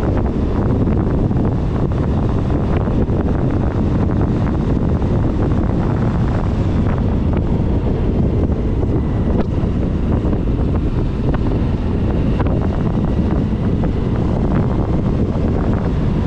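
Wind buffeting a motorcycle-mounted camera's microphone while riding at road speed: a loud, steady low rush that covers the bike's engine and tyres.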